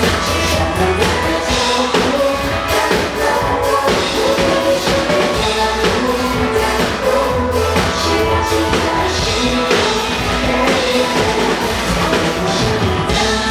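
A drum kit played along to a pop-rock song with a singing voice, keeping a steady beat.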